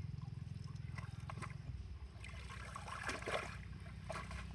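Water sloshing, dripping and splashing as a cast net is hauled up out of a shallow muddy pond by someone wading in it, over a steady low hum.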